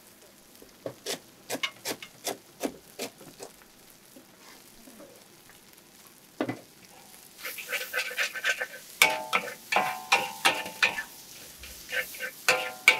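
Mee goreng being stir-fried in a wok: a metal spatula taps, scrapes and clangs against the pan. Single sharp taps come in the first few seconds, then a dense run of ringing clangs over the last five seconds.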